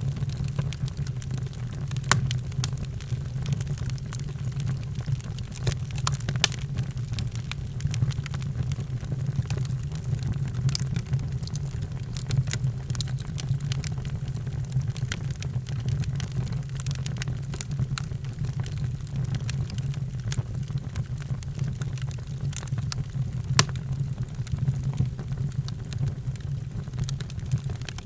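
Wood fire crackling in a fireplace: scattered sharp pops and clicks over a steady low rumble.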